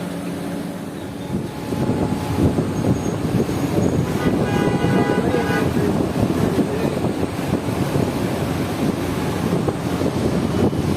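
Steady, loud street traffic noise, with a vehicle horn sounding for about a second and a half about four seconds in.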